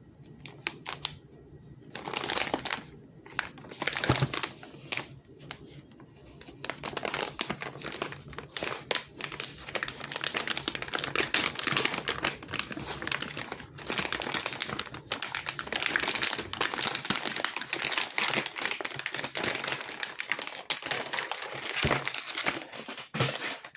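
Packaging of a hard tablet case being unwrapped by hand: continual crinkling and rustling with many small sharp crackles, starting about two seconds in and going on in uneven spurts.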